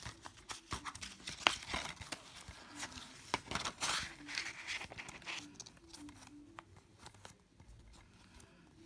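Rustling of a paper leaflet and light clicks of a plastic DVD case as they are handled, busiest in the first half and fainter toward the end.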